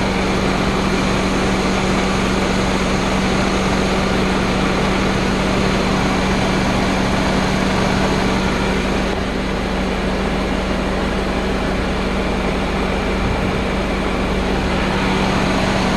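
Mercedes C230's 1.8-litre engine idling with the air-conditioning compressor and fans running, heard at the engine bay: a steady running noise with a constant low hum.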